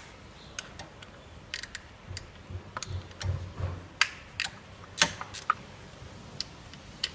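Irregular sharp clicks and light knocks of hand tools and parts being handled in a car's engine bay, with a few dull thumps about three seconds in.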